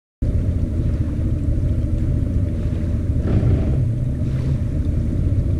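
Low, steady rumble of wind buffeting the camera microphone on a slow-moving bass boat.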